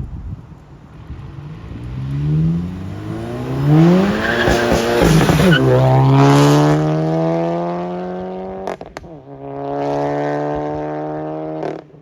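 Modified Volkswagen MK7 GTI's engine and exhaust under hard acceleration in sport mode, revs climbing in steps through the gears. About halfway in it settles to a steady, slowly rising note, breaks off briefly, then holds again until it cuts off near the end.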